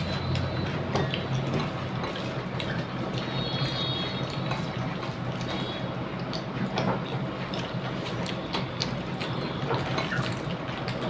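Eating by hand: fingers squish and mix rice with okra curry on a plate, with wet clicks and smacks of chewing, over a low steady hum.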